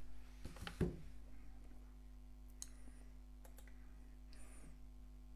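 A few faint computer mouse clicks and small handling noises, most of them in the first second, over a low steady hum.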